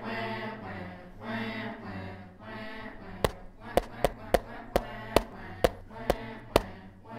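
Humming, chant-like voices, then about nine sharp hollow knocks at uneven spacing, roughly two a second, as a black plastic spool is set down again and again on cardboard.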